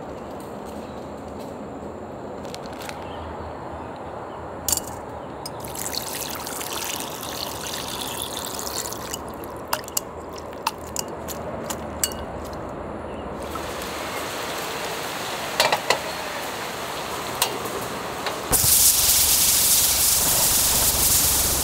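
Water trickling and dripping from a mesh strainer of thawed shrimp, with light clicks of handling. Near the end, butter starts sizzling loudly in a hot frying pan, and this is the loudest sound.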